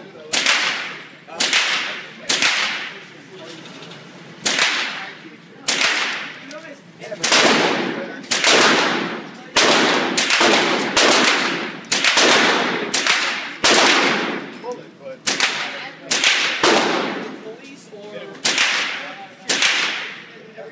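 Ruger AR-15-22, a .22 rimfire AR-style rifle, fired semi-automatically, about twenty shots at roughly one a second with a few short pauses. Each sharp crack rings on in the echo of an indoor range.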